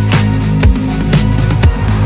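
Background music with a steady beat of about two beats a second over heavy, sustained bass.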